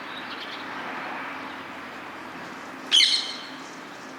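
Rose-ringed parakeet giving one loud, harsh shriek about three seconds in, over a steady background hiss, with a few faint short chirps early on.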